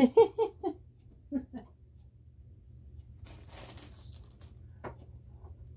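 A woman makes a few short voice sounds, then soft rustling of packaging follows for about a second, with one click near the end.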